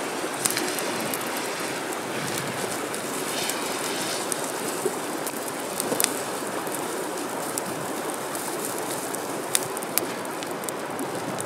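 Steady rushing of a river over rapids, with scattered sharp crackles and pops from a campfire frying pancake batter in a pan.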